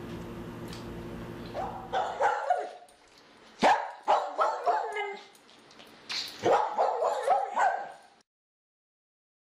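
A steady low hum for about two seconds, then a dog barking and yipping in quick clusters of short barks. It stops dead shortly before the end.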